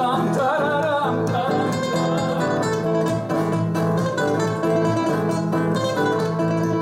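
Two acoustic guitars playing an instrumental break together, one strumming chords while the other plays a picked melody line.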